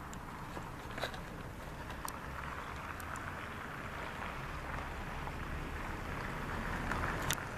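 Steady outdoor background noise with a low rumble, typical of wind on the microphone, and a few faint short ticks.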